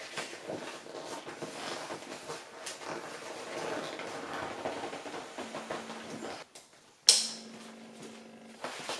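Red roll-top dry bag holding a sleeping bag being rolled and folded shut, its stiff waterproof fabric crinkling and rustling, with a sudden louder crackle about seven seconds in.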